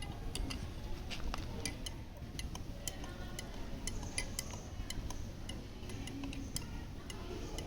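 Stirring the ginger, cactus-leaf juice and honey mixture, the utensil clicking against the side of the container in quick, irregular ticks.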